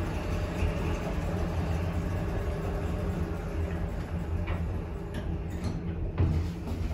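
Sematic centre-opening lift doors sliding shut, meeting with a thump about six seconds in, over a steady low hum.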